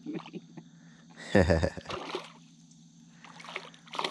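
A hooked spotted bass splashing at the water's surface near the end, over a steady low hum. A short, loud burst of sound comes a little over a second in.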